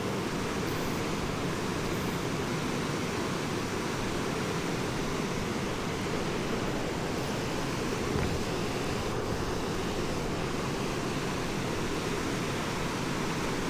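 Steady rush of a fast, clear mountain stream flowing over rocks.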